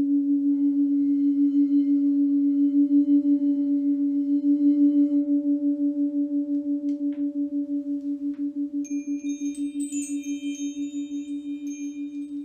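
Crystal singing bowl sounding one low, steady tone with an even pulsing waver, swelling a little and then slowly fading. Near the end, high bright chime tones ring out over it.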